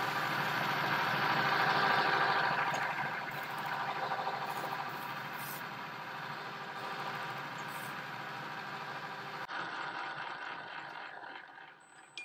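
Metal lathe running with a steel workpiece spinning in the chuck while an abrasive pad is held against it, a steady mechanical drone with a sanding hiss on top. The lathe's sound is worn, which the maker puts down to a part he broke on it. It winds down near the end, with a short click as it stops.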